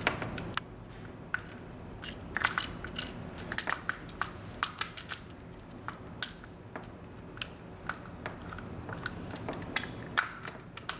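Hand handling of a 220-volt plug as its plastic housing is worked over the plug body: many small, irregular plastic clicks and scrapes.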